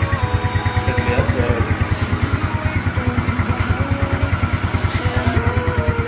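Motorcycle engine idling steadily with an even, regular beat while a cooking-oil flush circulates through it during warm-up; it runs smooth, not rough.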